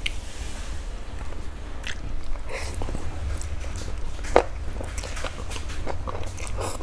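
A person slurping and chewing instant noodles close to the microphone: a run of wet smacks and slurps, with one sharp click about four seconds in, over a steady low hum.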